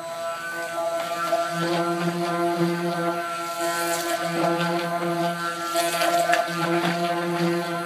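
Handheld stick blender motor running steadily with a humming whine, mixing soap batter of oils and lye water.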